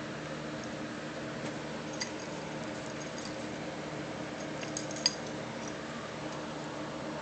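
Steady low room hum with a few small clicks and taps from handling and the dog's play; the sharpest click comes about five seconds in.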